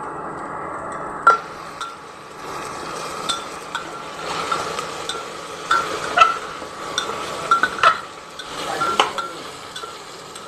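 A metal spoon stirring taro pieces frying in a pan, clinking and scraping irregularly against the metal over a steady sizzle. The clinks start about a second in.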